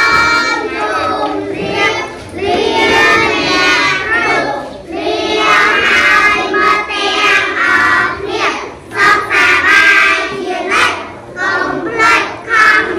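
A class of young schoolchildren chanting together in a loud sing-song chorus.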